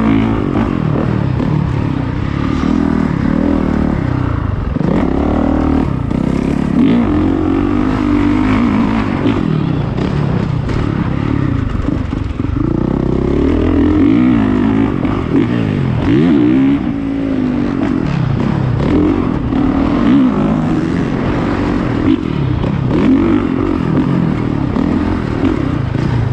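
Honda CRF450R's single-cylinder four-stroke engine being ridden hard on a motocross track, recorded on board: the revs climb and drop over and over as the rider works the throttle through the gears, with clatter from the bike over the rough dirt.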